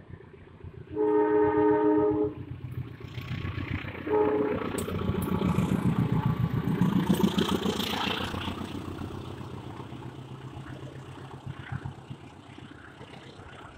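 Passenger train's KAI diesel locomotive sounding its multi-tone horn in one loud blast about a second in, then a short toot a few seconds later. It then passes close by: engine rumble and steel wheels clattering over the rail joints, loudest as the locomotive goes past, fading as the coaches roll by.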